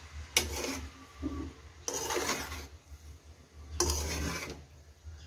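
Spatula scraping along the bottom of a kadai (wok-style pan) while turning and mixing cooked rice, in a few separate strokes each under a second, about every second and a half. This is rice being tossed through with the chicken-and-vegetable mixture.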